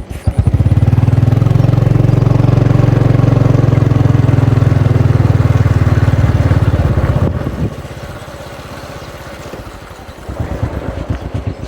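A small engine picks up speed and runs loud and steady, then drops away after about seven seconds and settles back to a slow, lumpy idle.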